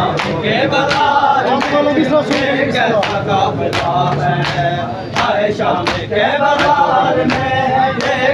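A group of male mourners chants a nauha lament in unison. Sharp hand slaps on bare chests (matam) keep an even beat of about one every 0.7 seconds.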